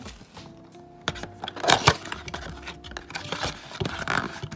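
Soft background music with held notes, under crisp clicks and rustles of a cardboard blaster box being handled and its flap pulled open; the loudest are a couple of sharp snaps a little before the middle.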